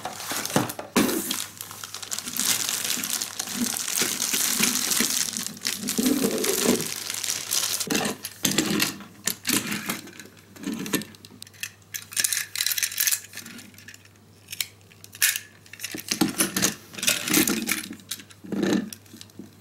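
Packaging rustling for about the first six seconds, then plastic Plarail N700 series toy shinkansen cars clicking and clacking against each other and the wooden tabletop as they are set down and coupled together.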